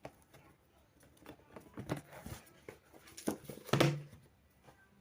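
Scattered small knocks and rustles of handling, a few short taps with the loudest cluster a little before four seconds in.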